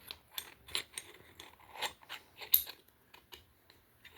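Metal quick-detach scope mount being handled and its locking lever forced closed: a string of sharp small clicks and taps, the loudest about two and a half seconds in.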